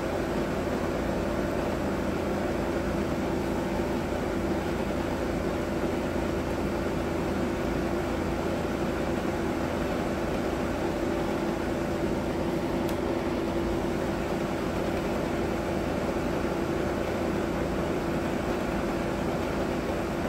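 Steady whirring hum of a running fan, one even pitch throughout, with a single faint tick about two-thirds of the way through.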